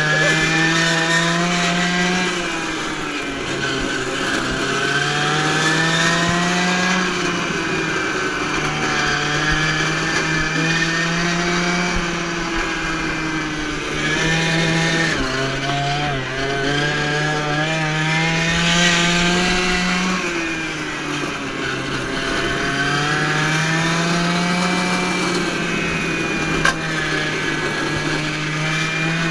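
Small two-stroke strimmer engine powering a go-kart, revving up and dropping back again and again as the kart is driven, its pitch climbing over a few seconds and then falling. A single sharp click near the end.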